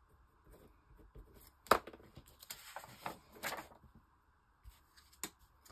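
Paper pages from an old book being handled and sorted, soft rustling with a few sharp taps, the loudest about one and a half seconds in.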